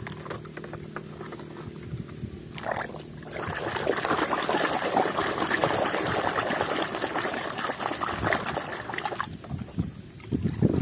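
Hands swishing and scrubbing a toy in a basin of muddy, soapy water: splashing and sloshing that starts about three seconds in and eases off near the nine-second mark. Before it, only quiet handling over a faint steady hum.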